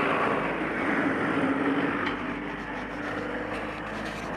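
A motor vehicle engine running steadily, its level easing off a little about halfway through.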